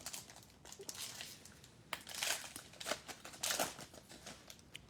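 Trading card pack wrapper being torn open and crinkled by hand, in a run of irregular rustling bursts. The loudest come about halfway through and again a little later.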